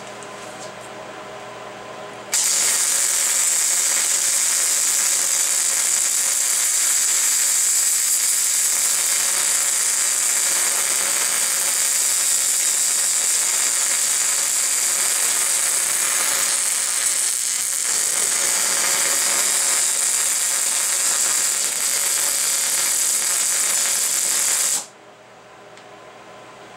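MIG welding arc on steel, a steady loud sizzling crackle, starting abruptly a couple of seconds in and cutting off sharply near the end as the bead on the bracket boss is finished. A quieter steady machine hum is heard before and after the arc.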